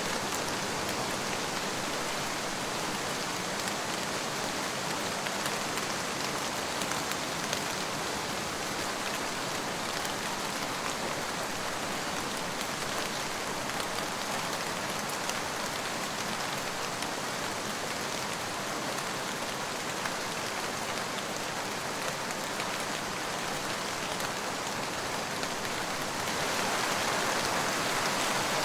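Steady rain falling and pattering on surfaces, an even dense hiss that gets a little louder near the end.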